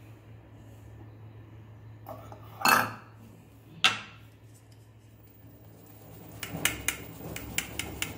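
Stainless-steel flour sieve knocking against a steel bowl as flour is sifted: two sharp metal clanks a little over a second apart, then a quick run of light taps near the end as the sieve is shaken and tapped.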